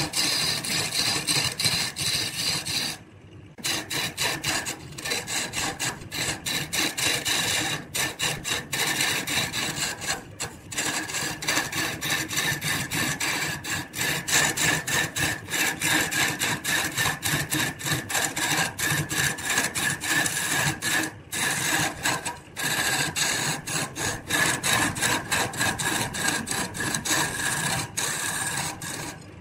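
A hand-held turning tool cutting a spinning wooden blank on a wood lathe makes a steady, rough shearing hiss. It breaks off briefly and often as the cut is lifted, and the longest break comes about three seconds in.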